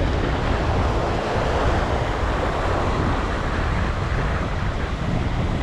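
Strong wind buffeting the microphone with a low, steady rumble, over the wash of surf against the rocks.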